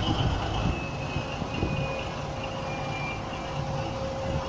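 Steady low rumble of harbour background noise, with a faint steady hum that sets in about a second in.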